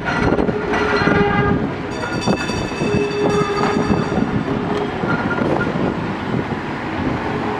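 Vintage PCC streetcar rounding a curve in the track, its steel wheels squealing in high whining tones that come in two long stretches and die away in the second half, over steady street traffic noise.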